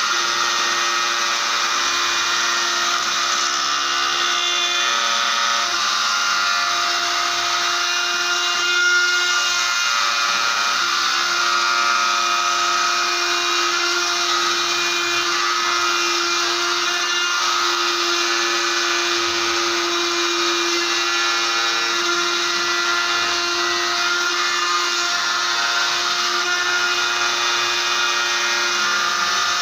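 CNC machine running steadily, its spindle giving a constant whine with several steady tones over a noisy hiss.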